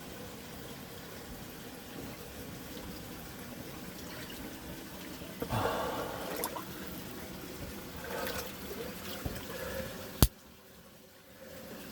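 Water of a warm-spring waterfall running and splashing steadily, with a louder swell of splashing about halfway through. A sharp click comes near the end, after which the sound is quieter.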